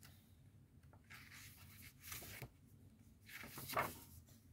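Faint rustling of paper as pages of a guidebook are turned: three soft rustles about a second apart, the last one the loudest.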